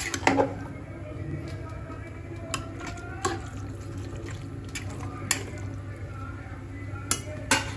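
A spatula stirring marinated mutton pieces in a metal pressure cooker: wet squelching of the meat with sharp clacks of the spatula against the pot every second or two, over a steady low hum.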